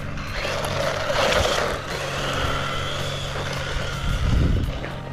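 JJRC C8805 1/16-scale brushless 4x4 RC truck driving, its motor whining and changing pitch with the throttle, with a louder low rumble about four seconds in.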